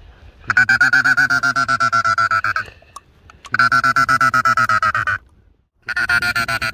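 Duck call blown in three long runs of rapid pulsing notes, each about two seconds with short breaks between, calling to ducks on the water.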